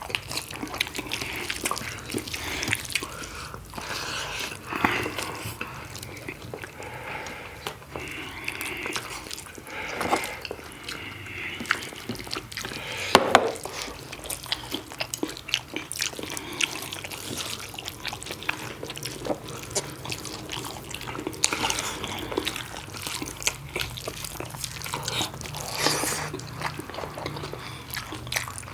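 Wet chewing and lip-smacking of people eating spicy pork curry with rice: a dense run of moist clicks, smacks and squelches.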